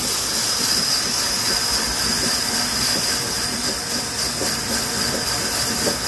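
Sawmill saw cutting hardwood, a steady, even hiss that is strongest in the high range.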